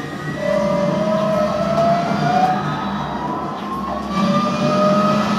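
NIO EP9 electric race car's motors whining at speed, several tones climbing slowly in pitch as it accelerates, with a dip and a new climb about four seconds in. Heard played back over a hall's loudspeakers.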